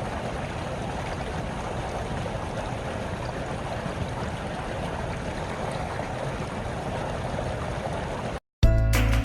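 Small creek babbling and trickling steadily over stones. It cuts off abruptly near the end, and after a brief silence music with a heavy bass begins.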